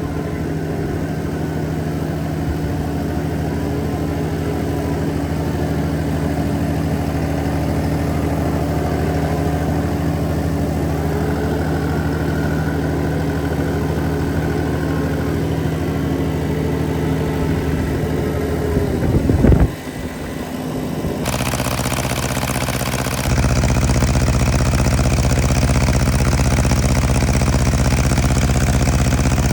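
An old farm tractor's engine running steadily. There is a brief surge about two-thirds of the way through, after which it runs louder and deeper.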